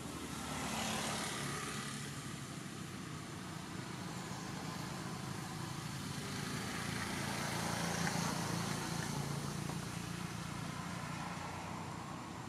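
Motor-vehicle engine noise: a steady low hum with a noisy rush over it, growing louder about a second in and again around eight seconds in, as vehicles pass.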